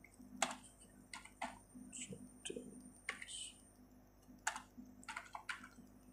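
Typing on a computer keyboard: about a dozen irregular keystrokes entering a number, with a pause of about a second midway.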